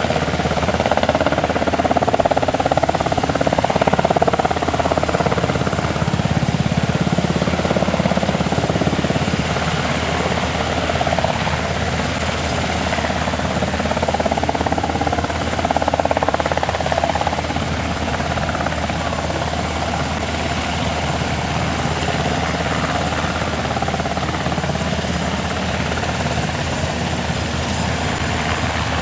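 JASDF UH-60J Black Hawk rescue helicopter hovering, its rotor and twin turboshaft engines running with a steady, loud noise that eases slightly a little past the middle.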